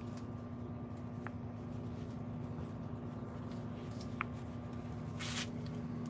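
Hand stroking a lionhead rabbit's fur, a faint rustle over a steady low hum. Two short high chirps come through, and there is a brief hiss about five seconds in.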